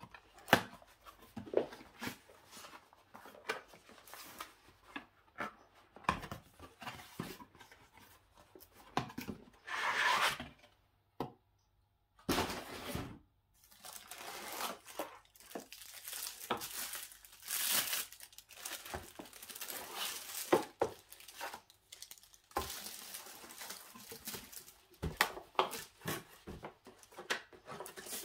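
Packaging being handled during an unboxing: wrapping tearing and crinkling, with irregular clicks and knocks from items being moved. The sound drops out completely for about a second near the middle.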